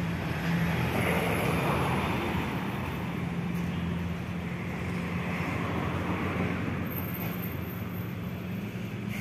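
Steady vehicle noise with a low hum underneath, swelling slightly about a second in and again around the middle.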